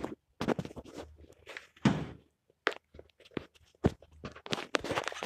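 Camera being handled close up: irregular knocks, rubs and scrapes of a hand against the device and its microphone. The loudest bumps come about two seconds and about four seconds in.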